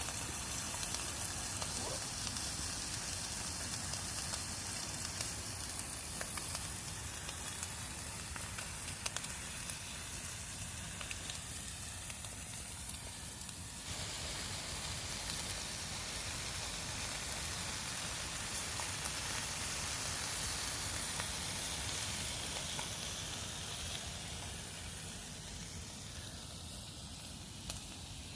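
Gammon steak sizzling in a frying pan: a steady frying hiss with small scattered crackles.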